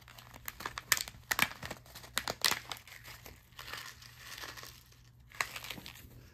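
Kraft paper pouch crinkling and crackling as it is handled and opened, with a burst of sharp crinkles in the first two and a half seconds, a softer rustle, then another crackle a little after five seconds.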